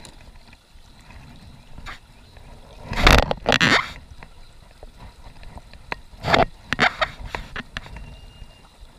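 River water gurgling past a log beside a plastic sit-on-top kayak, with two louder bursts of splashing and knocking, about three and six seconds in, as a kayak paddle is handled. The sound is muffled, as through a sealed camera housing.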